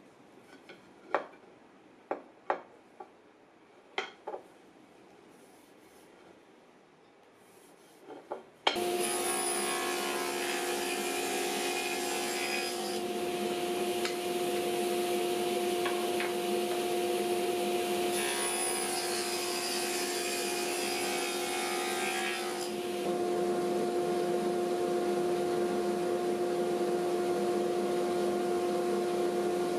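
A few light knocks as wooden strips are handled on a workbench. About nine seconds in, a sliding table saw starts suddenly and runs with a steady hum, and walnut and white oak strips are fed through it. Twice, for about four seconds each, the sound of the blade cutting gets brighter and hissier.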